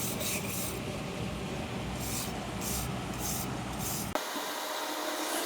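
Aerosol can of aluminium spray paint sprayed in several short hissing bursts, about half a second each, over a low background rumble.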